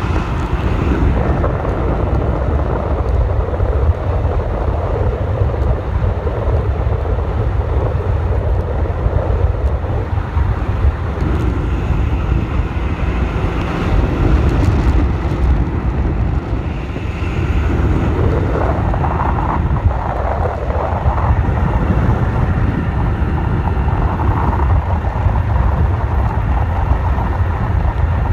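Bass boat running at speed over choppy water, heard as a steady rushing roar with heavy wind buffeting on the microphone.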